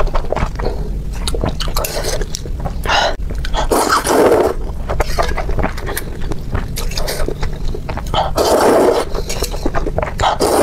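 Close-miked slurping of noodles from a bowl of broth, several noisy slurps with the longest about four and eight and a half seconds in, and chewing between.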